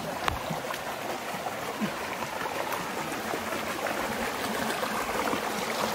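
Steady rush of a hill stream's water running over rocks, with one sharp click about a third of a second in.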